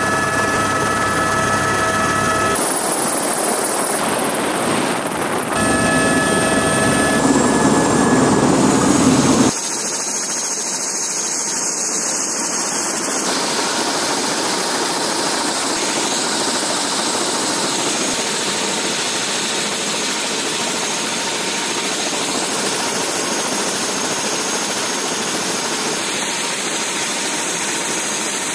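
Turbine helicopter running: a steady whine of several tones over the rotor and engine noise, cut together from several shots. About ten seconds in it changes to a more even rush with a thin high whine, heard from beside the landed helicopter.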